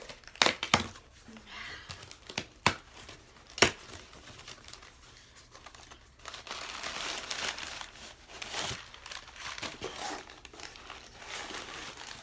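Packaging torn open by hand: several sharp rips over the first four seconds, then steady crinkling and rustling of the packing as the contents are dug out.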